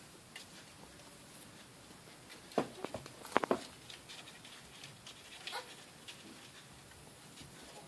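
A cat giving a few short, high calls in quick succession about two and a half to three and a half seconds in, then one more about two seconds later.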